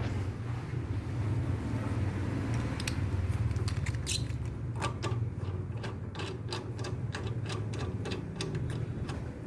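Steady low electrical hum of a Heter 400A welding machine, with a quick run of sharp clicks and taps from about five seconds in.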